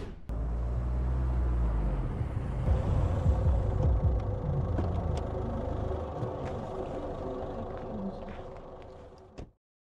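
Car engine running close by, a low steady rumble that gradually fades near the end, with a few faint clicks over it.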